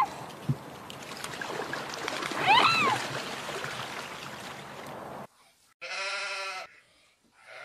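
Two animal calls from different clips. A short call rising then falling in pitch comes about two and a half seconds in, over a steady background hiss. After an abrupt cut, a longer call of about a second comes near the end.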